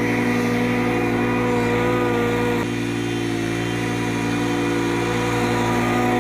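Scag V-Ride II stand-on mower running with its blades engaged, cutting tall grass: a steady engine hum with a small drop in level about two and a half seconds in.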